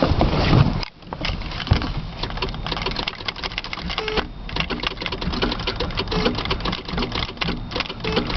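Datsun 280ZX's straight-six being cranked by the starter motor, turning over in a fast, even clatter without firing: a cold no-start.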